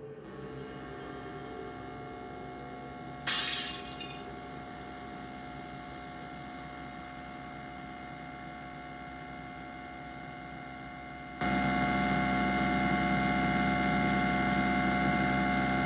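Sound track of a crude 3D animation played through computer speakers: a steady electronic drone of several held tones, broken about three seconds in by a short crash. Near the end the drone jumps suddenly much louder and holds.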